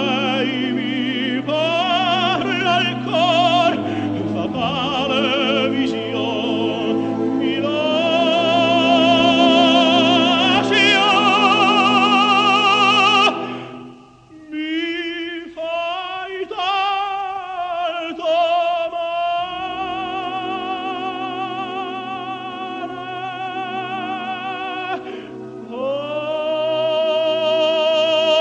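Operatic tenor singing in Italian with wide vibrato over a symphony orchestra. A long loud held note breaks off suddenly about halfway through, then after a brief pause the singing resumes and builds to another held note near the end.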